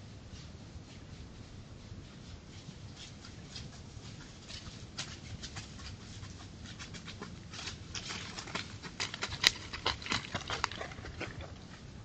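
A wolf's paws crunching and rustling through dry fallen leaves, the steps faint at first and growing louder and closer, with one sharp click about three quarters of the way through.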